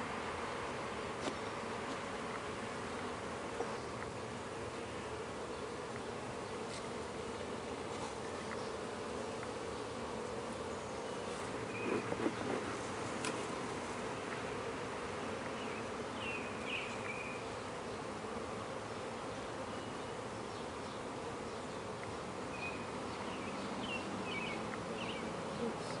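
Honey bee colony humming steadily over an open hive, with a few light clicks and knocks.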